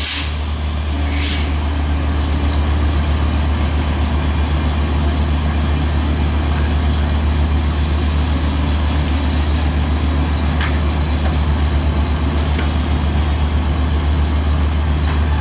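Large diesel railway engine idling close by: a steady, deep throbbing hum, with a few short bursts of air hiss.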